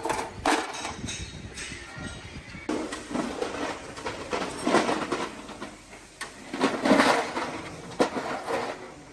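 Irregular knocks, clanks and scraping from hand work with tools and parts on a truck engine.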